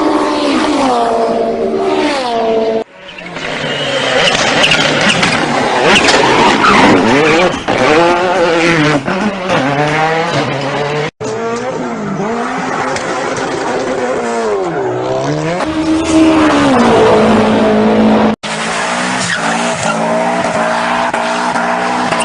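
Drifting car: the engine revs up and down while the tyres squeal, in several pieces spliced together with sudden breaks about three, eleven and eighteen seconds in.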